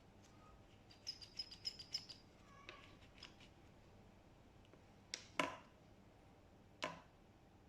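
Clicks and knocks of a pressure washer gun's parts being handled and fitted back together: a quick run of small ringing clicks about a second in, then louder knocks about five seconds in and again near seven seconds.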